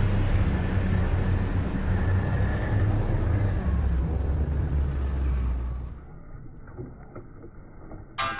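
Ski-Doo snowmobile engine running steadily under way, a loud low hum with track and engine noise. It cuts off abruptly about six seconds in, leaving a quieter stretch with a few faint clicks.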